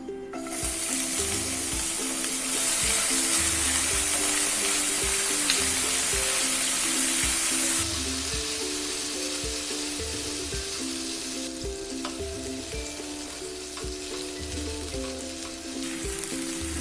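Chopped garlic and ginger sizzling as they hit hot oil with cumin in a kadai. The sizzle starts loud about half a second in and eases after about eight seconds as the oil cools.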